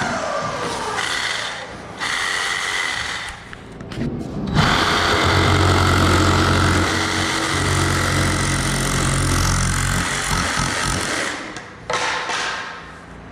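Power saw running and cutting wood. It goes in short runs at first, then a loud, steady run from about four and a half seconds in to about ten seconds, before dying away.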